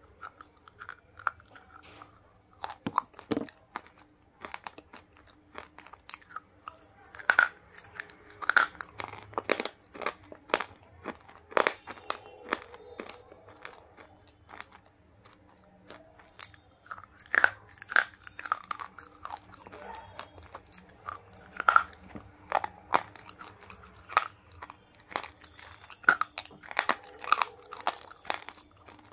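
Close-miked biting and chewing of dry, crumbly pink bars: irregular sharp crunches with quieter grinding between and short pauses.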